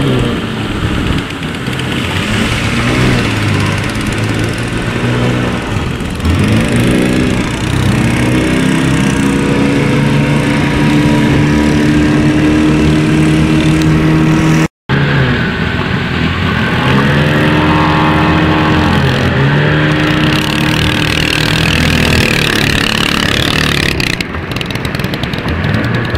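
Small tiller-steered outboard motor running on a boat under way, its pitch rising and falling several times as the throttle changes, over a steady rush of water and wind. The sound cuts out briefly a little past halfway.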